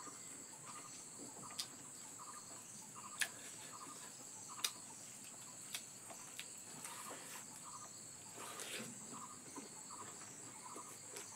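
Faint insect chirping: short pulsed chirps repeating about twice a second over a steady high-pitched insect drone, broken by a few sharp clicks.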